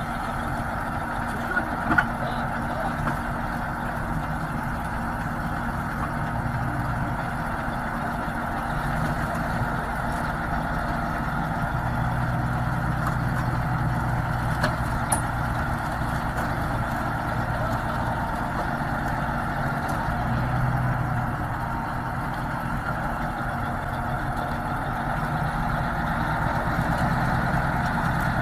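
A truck engine running steadily, with a couple of faint knocks.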